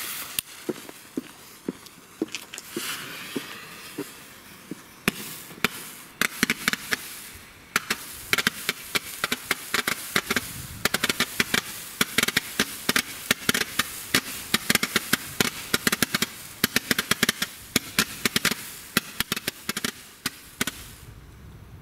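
Lesli 'Böser Chef' 100-shot star tube (Leuchtkugelrohr) firing. The lit fuse hisses with a few scattered pops at first. From about eight seconds in it becomes a rapid string of sharp shots, several a second, as the stars are launched, and stops abruptly near the end.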